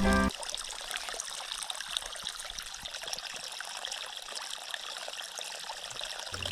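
Water trickling steadily, as theme music cuts off right at the start.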